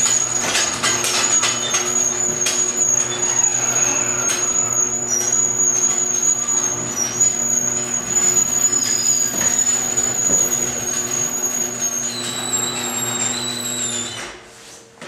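A garage door opener runs with a steady electric-motor hum and a high whine, with rattling early on. It stops about fourteen seconds in.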